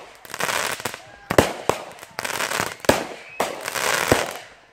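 Aerial fireworks going off in quick succession: several sharp bangs of bursting shells, a second or so apart, with crackling and hissing between them.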